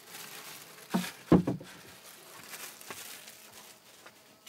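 Indoor handling sounds in a small room: soft rustling with two knocks about a second in, the second one louder, then faint scuffs of footsteps on an earthen floor.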